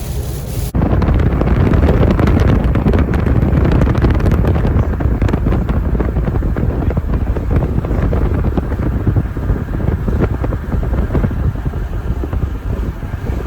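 Truck driving on a wet road in the rain: a steady low road rumble with rain crackling over it, starting abruptly under a second in.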